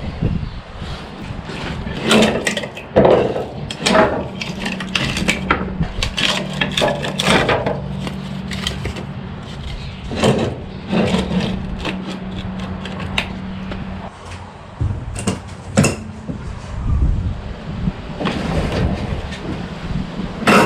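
Irregular clanks, knocks and scrapes of hand tools working on a vehicle wheel, with a steady low hum running through much of it.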